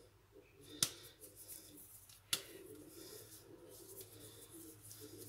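Faint handling sounds of hands rolling and shaping a ball of soft dough, with two sharp clicks about a second and a half apart.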